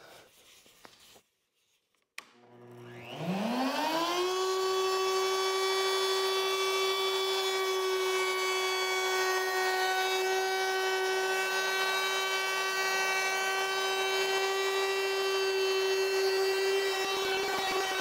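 Porter-Cable plunge router with a flush-trim bit switched on about two seconds in, its motor winding up in a fast rising whine and then running at a steady high-pitched whine. Near the end the whine roughens as the bit starts cutting along the edge of the curved wooden jamb.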